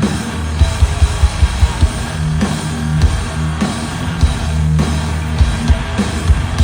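Thrash metal band playing live at full volume: distorted electric guitars and bass holding heavy low riffs over hard-hit drums, with a quick run of drum hits about a second in.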